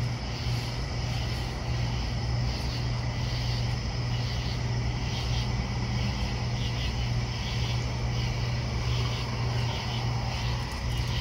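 A steady low machine hum runs throughout, with faint, irregular high chirps above it.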